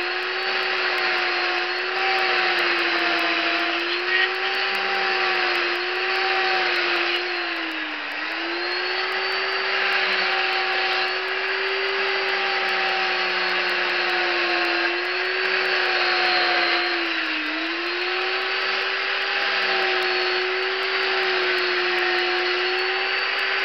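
Chainsaw running steadily at high speed while carving into a wood block. Its pitch sags briefly under load about eight seconds in and again near eighteen seconds.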